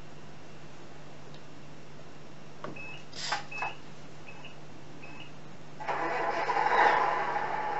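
Tamiya MFC-01 sound unit in a Scania R620 RC truck: a few short electronic beeps, then its simulated truck diesel engine starts up about six seconds in and settles into an idle.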